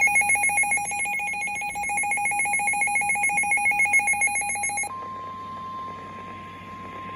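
Emergency Alert System tornado-warning tones. The harsh, rapidly pulsing two-tone EAS attention signal cuts off about five seconds in. It gives way to the steady single-pitch NOAA Weather Radio warning alarm tone, a little higher in pitch.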